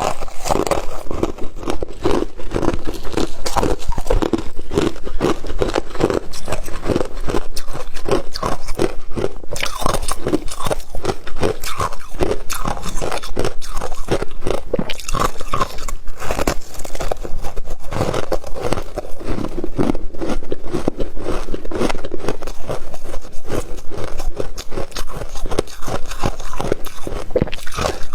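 Freezer frost being bitten and chewed close to the microphone: dense, irregular crunching, many crunches a second.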